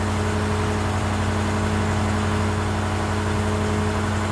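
An engine idling steadily, an even unchanging hum.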